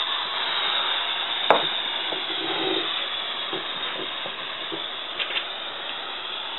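Air rushing out of a 9-inch balloon through the bottle-cap nozzle of a CD balloon hovercraft: a steady hiss that slowly fades as the balloon empties, with a single knock about one and a half seconds in.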